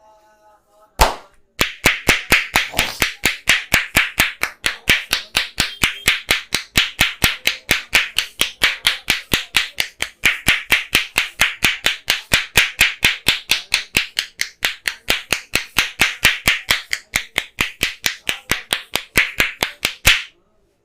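Percussive head massage: the barber's hands clapping in a fast, even rhythm, about four claps a second for nearly twenty seconds, after a single clap about a second in.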